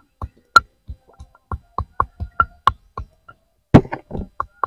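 Pestle pounding ginger and garlic in a brass mortar: short knocks about three a second, many with a brief metallic ring. A louder clatter comes about four seconds in.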